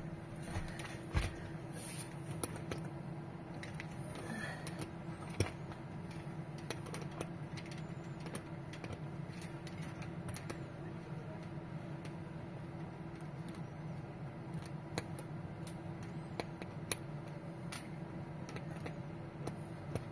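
Small metal clicks, taps and scrapes from a hand tool tightening a nut on a bolt of a wire terminal. A steady low hum runs underneath.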